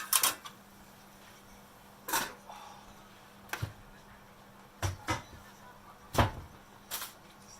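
Kitchen handling sounds: a string of separate short knocks and clicks, about eight in all, as utensils, containers or cupboard doors are handled.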